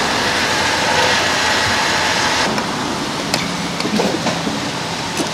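Petrol pump dispensing fuel through the nozzle into a Nissan 350Z's filler neck: a steady hiss of flowing fuel with a faint pump whine, which drops away about two and a half seconds in. A few sharp clicks follow as the nozzle keeps cutting out before the tank is full.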